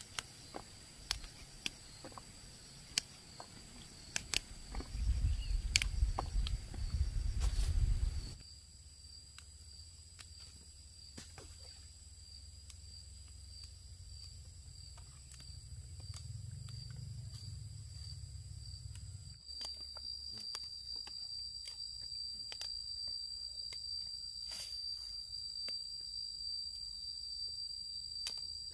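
Insects trilling steadily at a high pitch, in two high tones, one with a fast even pulse. Scattered clicks and a low rumble sound over it during roughly the first third.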